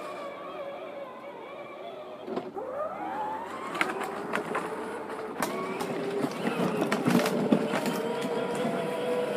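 Battery electric motor of a John Deere Gator ride-on toy whining as it drives over grass. It dips about two and a half seconds in, then winds back up with a rising whine, with scattered knocks and rattles from the plastic body over the bumps.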